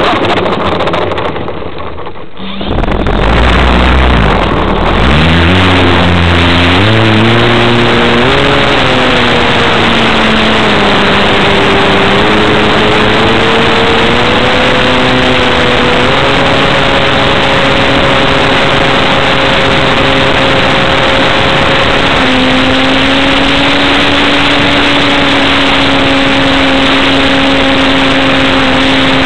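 Super Sportster RC model plane's motor and propeller, heard loud and close from a camera on board the plane with wind rush over it. The pitch dips, then swings up and down for several seconds, then settles into a steady high drone in flight.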